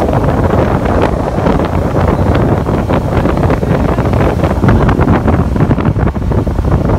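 Loud, steady wind buffeting the microphone of a small motorboat under way, with the boat's running noise beneath.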